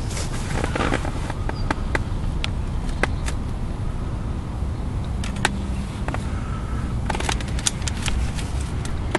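Steady low outdoor rumble with scattered sharp clicks and rustles, thickening into a cluster of clicks about seven seconds in as the camera is moved by hand.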